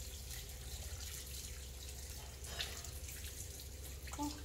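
Kitchen sink faucet running steadily, its stream pouring onto a wet puppy being rinsed in the sink.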